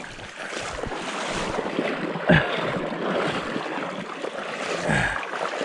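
Steady rushing, splashing water noise close to the microphone in a shallow creek. A brief falling sound stands out about two seconds in, and a weaker one near the end.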